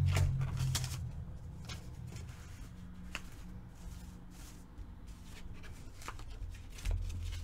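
Paper being handled and rubbed with an ink pad to ink its edges: soft paper rustling and scuffing with a few irregular light taps, the sharpest right at the start. A low steady hum runs underneath.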